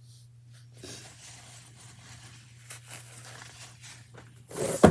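Hands being wiped on tissue paper: soft, scattered rustling and crinkling of the paper, with a louder rustle near the end. A steady low hum runs underneath.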